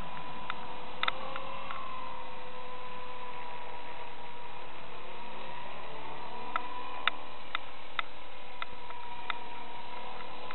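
Walkera DF60 radio-controlled helicopter in flight: a steady whine from its motor and rotors that sags and rises slightly in pitch as it manoeuvres. A few short sharp clicks are scattered through it.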